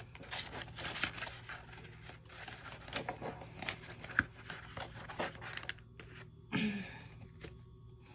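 Paper and cash being handled: rustling and crinkling with small taps and clicks, as bills are tucked into a paper savings envelope.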